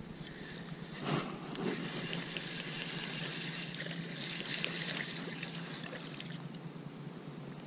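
Water splashing and trickling as a small hooked warmouth is reeled up to the kayak and lifted from the pond, dripping.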